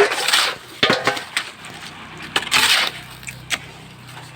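Four or five short, irregular scraping and clinking strokes of hand tools on hard, gritty building material, with a faint steady hum starting about three seconds in.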